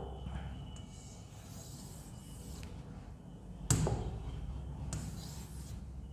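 A stylus knocking once, sharply, against an interactive display panel a little past halfway through, over a faint steady hum.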